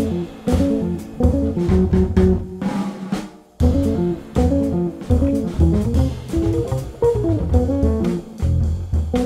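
Jazz-blues trio playing: electric guitar lines over upright bass and drums. About three seconds in the band drops out for a moment, then comes back in together.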